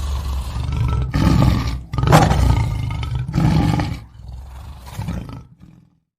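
Lion roaring in a series of deep, loud bouts, the loudest about two seconds in, then trailing off more quietly and stopping shortly before the end.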